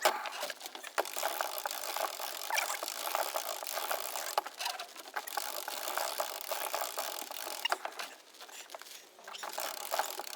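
Sailboat winch cranked by a winch handle, its pawls clicking rapidly as it hauls a person up the mast on a halyard, with a brief let-up about eight seconds in.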